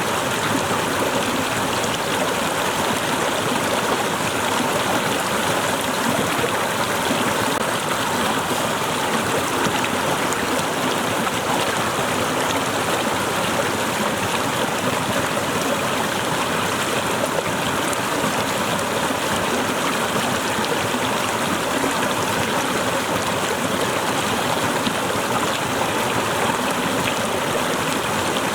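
Waterfall cascading steadily, a constant rushing of falling and splashing water.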